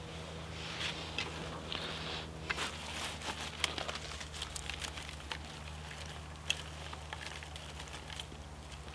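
Small irregular crackles and clicks from a burning tinder card on a bed of sticks, with rustling and light snapping as dry grass and twigs are laid over it as kindling.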